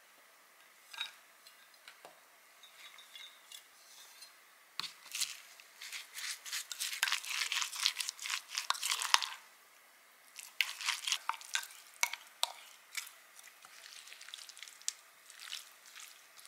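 A spatula stirring a thick chili-and-soy seasoning sauce in a glass measuring cup: wet scraping and light clicks against the glass, coming in bunches with short pauses, busiest around the middle.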